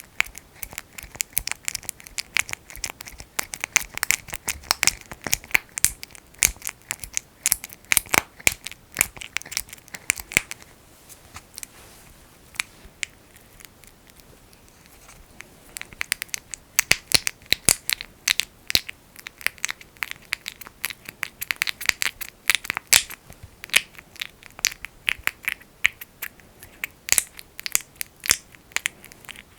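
Fingers squishing and working thick Vaseline petroleum jelly, a dense sticky crackling of many small pops and clicks, with a quieter lull of a few seconds in the middle.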